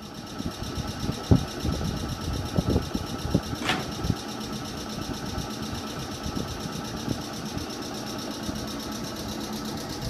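Meitetsu 5600 series electric train coming to a stop at a station platform, with low knocks from the wheels in the first few seconds and a short hiss about four seconds in. The standing train's on-board machinery then hums steadily.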